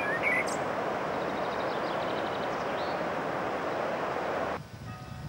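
Steady rush of river water pouring over a weir, with a few short bird chirps near the start. It cuts off abruptly about four and a half seconds in, leaving a quieter low rumble.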